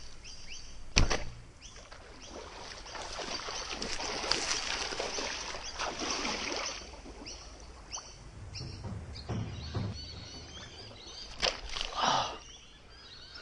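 Splashing as a person jumps and wades through shallow, lily-covered pond water, loudest for a few seconds in the middle, after a single sharp snap about a second in. A few smaller splashes follow near the end.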